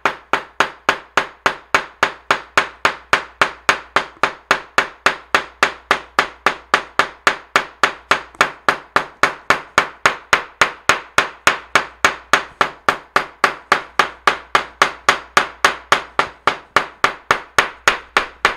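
Steel claw hammer beating steadily on a leaf through a paper towel, onto paper on a cutting mat, about four blows a second. The leaf is being pounded to press its pigment into the paper. The blows stop abruptly at the very end.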